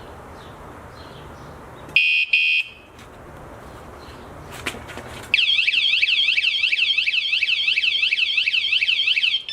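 Wsdcam 113 dB vibration-sensor motorcycle alarm set off by movement. About two seconds in it gives a quick two-beep warning. About three seconds later, as the movement continues, the full alarm sounds: a loud, fast warbling siren of about four sweeps a second, which stops just before the end.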